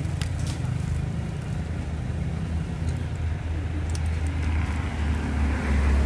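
Kitchen shears snipping through a raw crab's shell, a few sharp clicks scattered through, over a low steady rumble that grows louder near the end.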